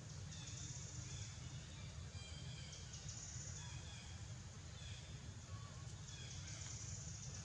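Faint outdoor ambience: a steady low rumble with short, high-pitched chirps that come and go several times.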